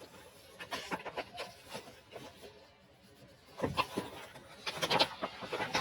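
Handling noise of a magazine package being unboxed: scattered clicks, taps and rustles of paper and packaging, busier about two thirds of the way through.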